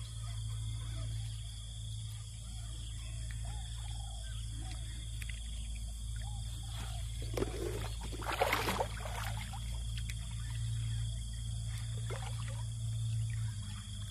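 A hooked African catfish thrashing and splashing at the water's surface, loudest about seven to nine seconds in, with a smaller splash near the end. Under it runs a steady outdoor background with a thin high-pitched drone.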